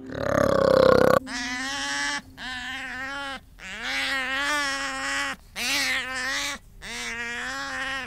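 A brief rough, throaty sound cuts off about a second in. It is followed by sea otters crying: five long, wavering, high calls of about a second each, with short breaks between them.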